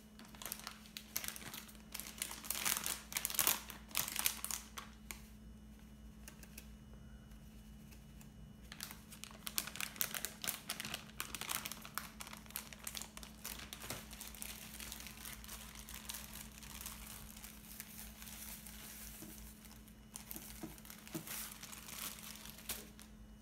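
Plastic packaging crinkling and rustling in three spells as kinako (roasted soybean flour) is poured out into a glass bowl, over a steady low hum.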